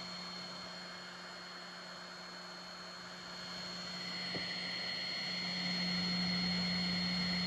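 Steady hum and whir of a stopped 3D printer's fans and electronics, a constant low tone with a thin high whine over a hiss, growing a little louder about five seconds in.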